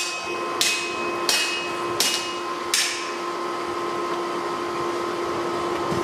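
Hammer blows on steel at the anvil while forging a lawnmower blade into a machete: about five strikes, roughly two-thirds of a second apart, each with a short metallic ring, stopping about three seconds in. A steady mechanical hum runs underneath.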